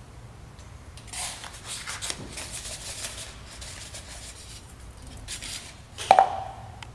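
Rustling and scraping as a hand rummages through the draw for a number, then one sharp knock with a brief ring near the end.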